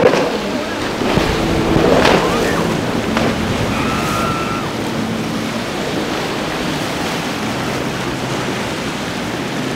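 Surf and wind noise on the microphone, with the motor of a small inflatable tender running fast underneath as it planes through choppy water.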